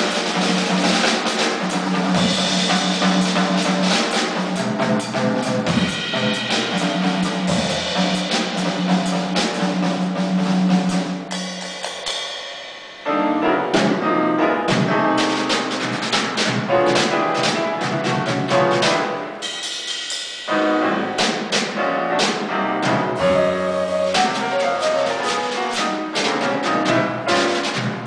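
Drum kit playing a busy jazz passage of snare, bass drum and cymbal strokes, easing off briefly about halfway through and again about two-thirds of the way in.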